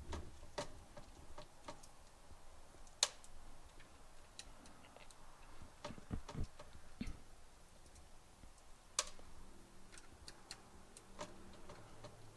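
Phillips screwdriver backing small screws out of the pump block of a Corsair H100i AIO liquid cooler: scattered, irregular small clicks and ticks. The sharpest clicks come about three seconds in and about nine seconds in, with a few soft low knocks around six to seven seconds.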